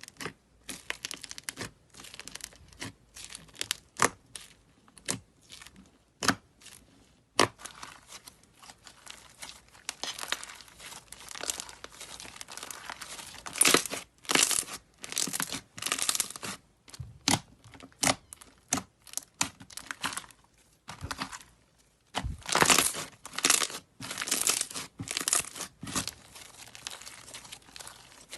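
Slime being squeezed and pressed by hand, giving irregular runs of crackling and popping clicks, with louder bursts about halfway through and again near the end.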